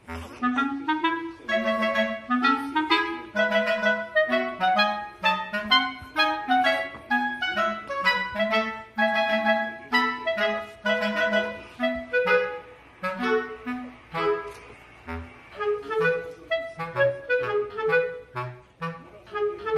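Background music: a bouncy tune of short, detached notes, a woodwind-like melody over a moving bass line.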